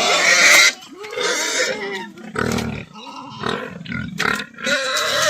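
Pigs squealing and grunting at feeding time. A loud squeal stops about half a second in, short grunts and squeals follow, and loud squealing starts again near the end.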